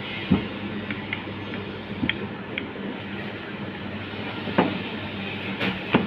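Rolling pin rolling out a large, thin sheet of paratha dough: a steady rumble with four sharp knocks spread through.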